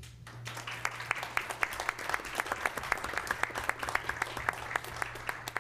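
A small audience applauding: many scattered hand claps over a steady low hum.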